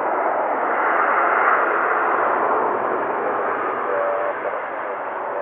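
Airbus A330-300's Rolls-Royce Trent 700 jet engines in reverse thrust during the landing rollout on a wet runway: a loud, steady rushing roar mixed with tyre spray, easing slightly toward the end.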